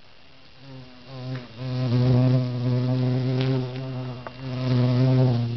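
A bee buzzing right at the microphone as it hovers around the camera: a low, steady drone that starts faintly about a second in, grows loud about two seconds in, and dips briefly around four seconds as the bee moves closer and away.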